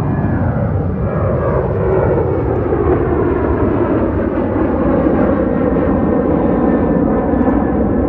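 Boeing 737-800 airliner's two CFM56 jet engines at takeoff thrust as it departs. The noise is loud and steady throughout.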